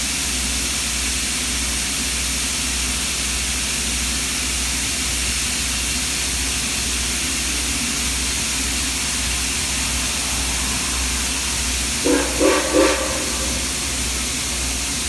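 Steady hiss with a low hum under it, then three short blasts of Nickel Plate 765's steam whistle in quick succession about twelve seconds in.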